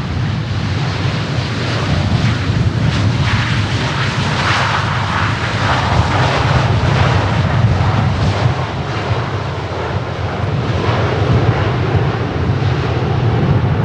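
Jet airliner engines running loud, a deep rumble under a rushing roar that swells about four to eight seconds in.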